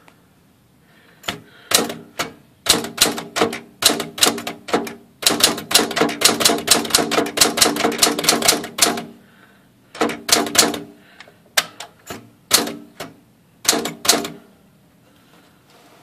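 Singer Professional manual typewriter, a rebadged Smith Corona Classic 10, being typed on: type bars striking in short groups of keystrokes, with a fast unbroken run of about four seconds in the middle, then a few short groups before the typing stops.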